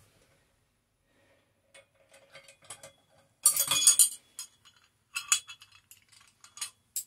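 Steel V-grip row handle clinking and rattling against a metal bar as it is taken off and handled: scattered light clinks, with louder bursts of rattling about three and a half seconds in and again just past five seconds.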